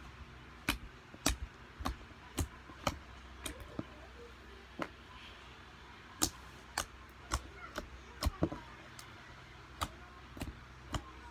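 Slime being squeezed and worked in the hands, giving sharp, irregular pops and clicks, roughly one or two a second.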